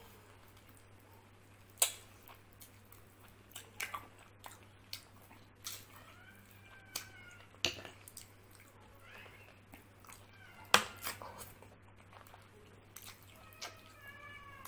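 Close-up wet chewing and lip-smacking while eating rice and mutton chana masala by hand, with sharp smacks at irregular moments; three are much louder than the rest. Faint, high, wavering cries come in about halfway through and again near the end.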